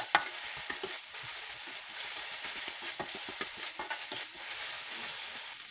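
Spice paste of onion, ginger and garlic sizzling in oil in a metal frying pan, with a spatula scraping and stirring it in quick, irregular strokes. The masala is being fried down (kashano) before water is added.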